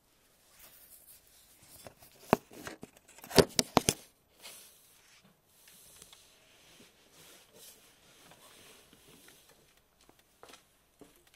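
A cluster of sharp clicks and knocks about two to four seconds in, with faint rustling and a few scattered ticks otherwise.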